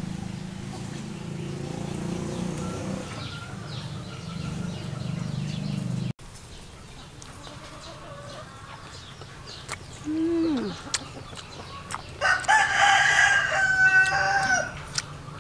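A rooster crows once near the end, one long call of about two seconds, the loudest sound here, over a low steady hum in the first few seconds.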